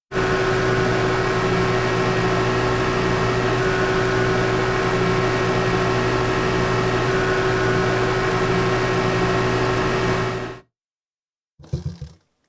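Motorcycle engine running at steady, unchanging revs with a constant hum, cut off abruptly after about ten seconds. After a moment of silence, a brief burst of engine sound comes near the end.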